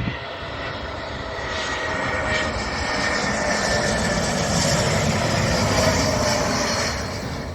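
Jet airliner engines, an Embraer E195-E2's geared turbofans, a steady rush with a couple of held tones, growing louder to a peak about six seconds in and easing off near the end.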